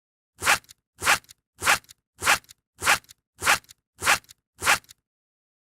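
Foley sound effect: eight identical short strokes, evenly spaced about 0.6 s apart, each swelling quickly to a peak and ending in a faint click.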